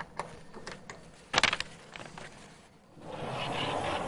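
A brass key turned in a tram's exterior door lock, giving light clicks and then a sharp cluster of metallic clicks about a second and a half in. A steady hissing rush sets in about three seconds in as the door is worked.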